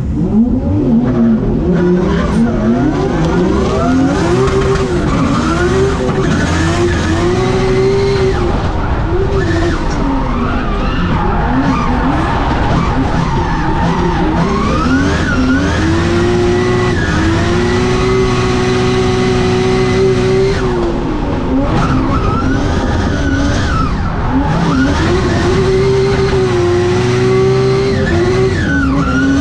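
Drift car's engine heard from inside the cabin, revving hard through a drift: the pitch climbs, holds high for a few seconds at a time (three main stretches) and drops back between them. Underneath is the noise of the rear tyres spinning and sliding.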